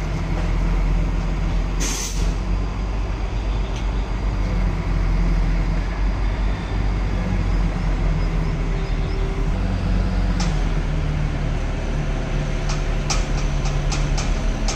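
Heavy truck diesel engine running steadily, with a short hiss of air about two seconds in and a quick run of sharp ticks near the end.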